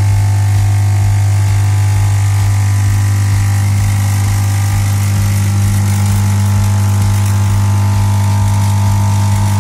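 Lavazza A Modo Mio capsule espresso machine's vibration pump buzzing steadily under load during a brew attempt. The piercing piston is not forcing through the capsule, so water spills out around the brew unit instead of coffee coming out.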